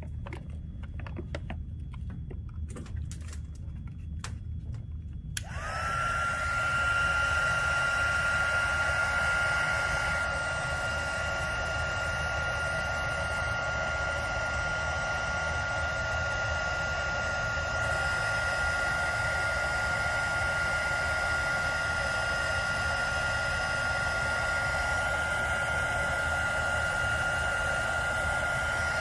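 Electric heat gun switched on about five seconds in, after a few faint handling clicks. It blows steadily with a high, even whine that rises briefly as the fan spins up. It is being used to shrink heat-shrink tubing over the mower's spliced motor wires.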